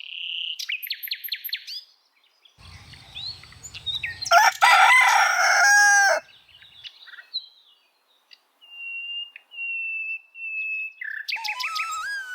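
Small birds chirping, then a rooster crowing loudly for about two seconds near the middle. A flute tune begins near the end.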